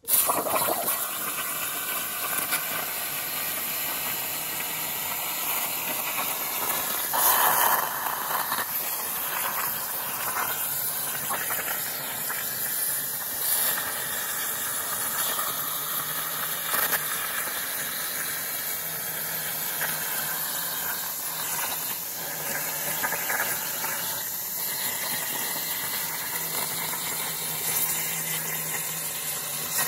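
CNC plasma torch cutting 3 mm mild steel: a steady hiss of the arc and air jet, briefly louder about seven seconds in.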